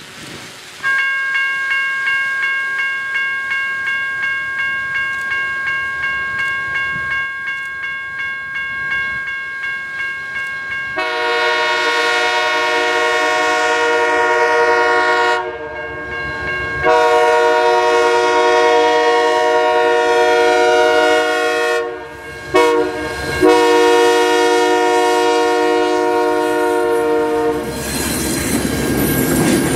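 A diesel locomotive's bell ringing steadily, joined after about ten seconds by its air horn sounding the grade-crossing signal: two long blasts, a short one and a long one. Near the end the noise of the passing train rises.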